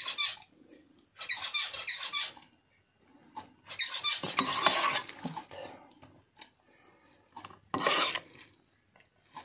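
Metal spoon stirring and scraping through cooked rice pilaf in a metal pan: three scraping strokes, one about a second in, a longer one around four to five seconds in, and a short one near the end.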